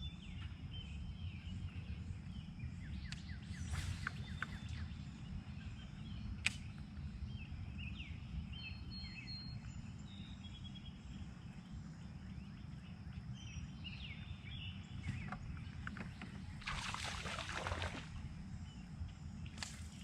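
Outdoor creek ambience: scattered small bird chirps and a steady high insect buzz over a constant low rumble. A few sharp clicks, and a short rushing noise about three-quarters of the way through.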